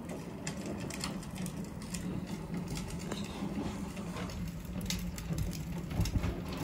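Wind rumbling on the microphone, with scattered faint crackles and taps from cooking rotis over an open wood fire.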